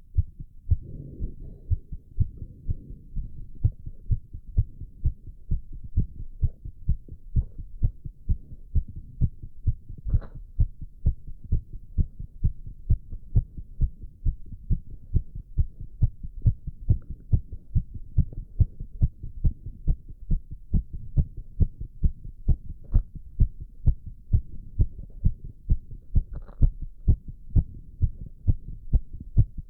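A man's heartbeat beating fast and steadily after exertion from squats, as a regular run of low thuds. There are two brief, sharper knocks, one about ten seconds in and one near the end.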